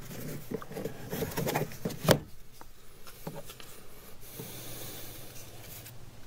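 Plastic trim around a truck's inside door handle being worked loose: a run of small clicks and rubbing, then one sharp snap about two seconds in as it pops free, followed by a few faint ticks.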